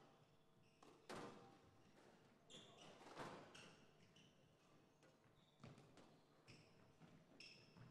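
Squash rally heard faintly: the ball's sharp smacks off rackets and walls every second or two, with short squeaks of players' shoes on the court floor between them.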